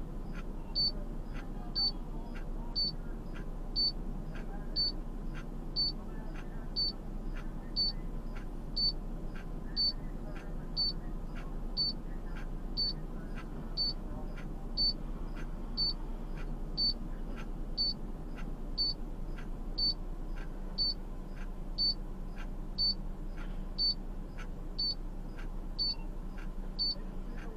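Short high-pitched beep from a vehicle's warning chime, repeating evenly about once a second over a steady low rumble.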